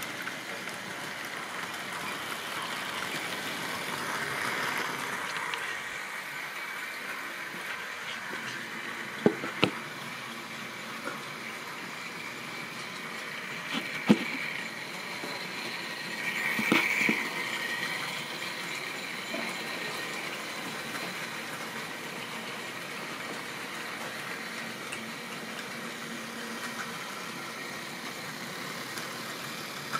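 Model railway trains running on the layout: a steady running noise of model wheels on the track and the locomotive motors, with a few sharp clicks about 9 and 14 seconds in and a brief louder swell near 17 seconds.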